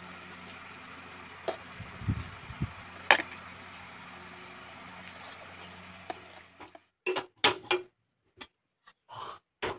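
A steady low hum with a few sharp clicks of a metal spoon while eating, and a couple of soft low thuds. The hum then cuts off, and a series of short knocks and clatters of cookware follows at a gas stove.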